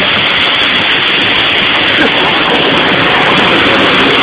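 Strong wind buffeting the phone's microphone: a steady, loud rush of noise, possibly with rain in it.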